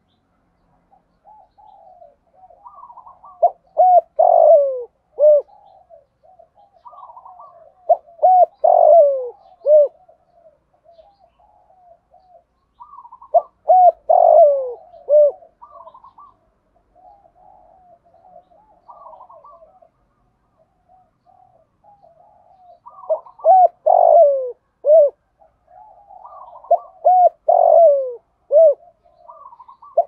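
Spotted dove cooing: five phrases of low coos, each ending in a few short falling notes, with softer notes between them and a longer pause in the middle.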